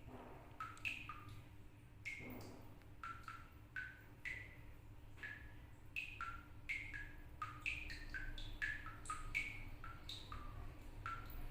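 Water drops falling from a tap in a toilet, each landing with a short plink at a different pitch, in an irregular patter of about two to three drops a second that sounds like drumming music.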